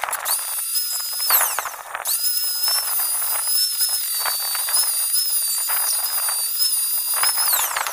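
Electric angle grinder with a flap disc grinding down weld seams on metal tubing, a high steady whine over the scrape of the disc on the metal. It winds down with a falling whine about a second and a half in, starts up again, and winds down near the end.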